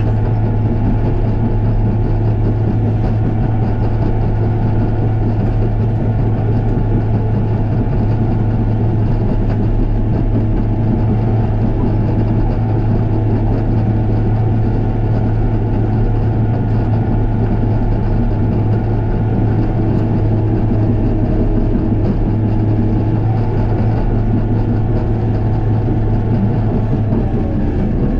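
Heavy diesel engine running steadily with an unbroken low drone.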